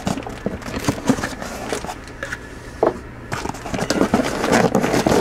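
Cardboard shipping box and its cardboard insert pieces being handled, with scattered scrapes, knocks and crackles; the rustling grows denser about three and a half seconds in.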